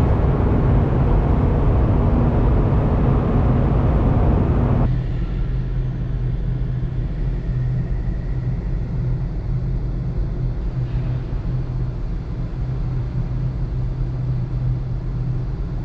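Steady low engine drone of a running vehicle. It is louder and fuller for about the first five seconds, then drops suddenly to a quieter hum.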